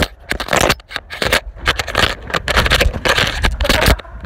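Handling noise from a phone being carried while its holder hurries: dense, irregular rustling and scraping against the microphone.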